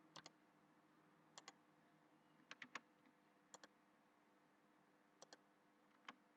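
Faint computer mouse clicks, mostly in quick pairs, repeating about six times over a quiet room with a faint steady hum.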